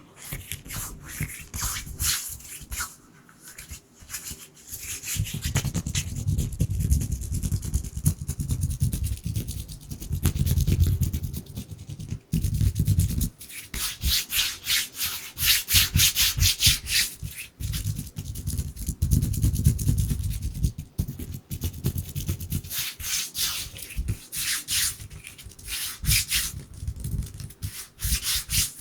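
Dry palms rubbing together close to the microphone in quick, repeated strokes. There is a low rumble in two longer stretches, in the first half and again later.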